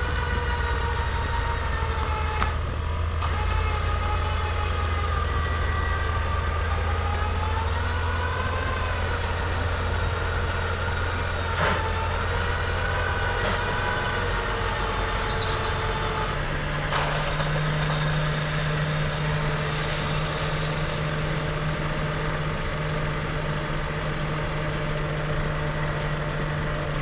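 A vehicle engine running with its pitch wavering up and down as it works, then changing about 16 seconds in to a steadier, even drone.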